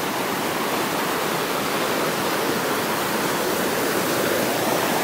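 Whitewater of a mountain creek rushing over rocks and logs: a steady, loud rush of water.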